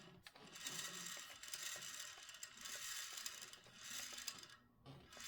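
Antique lathe's chuck and spindle being turned slowly by hand, giving a dry metallic rasping and clicking that swells and fades several times.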